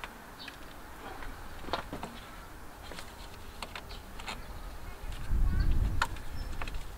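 Scattered light metal clicks and taps of a 10 mm wrench working the negative terminal nut on a car's 12-volt battery. A low rumble about five seconds in is the loudest part.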